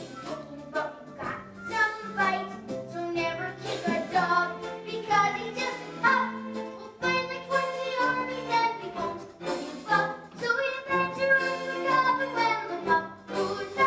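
A sung stage-musical number: singing over a live pit orchestra.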